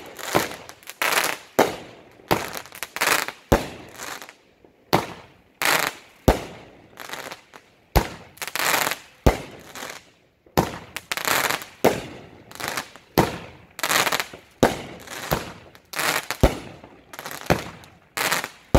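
Aerial fireworks firing a rapid, steady series of shots, about one every 0.7 seconds, each a sharp bang followed by a short crackling hiss as the burst breaks.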